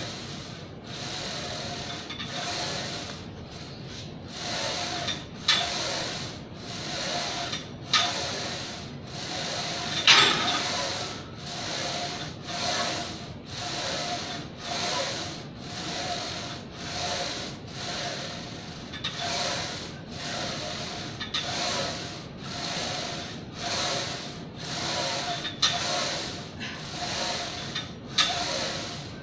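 Glute kickback machine's moving lever arm and pivots rubbing and faintly squeaking with each push and return, about one stroke a second, with a few light knocks from the machine.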